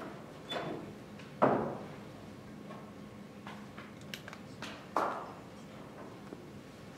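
Knocks and thuds from a freestanding stage prop door being pushed open and left swinging, with offstage bumps. The loudest thud comes about one and a half seconds in and another about five seconds in, with a smaller knock near the start and a few light clicks between.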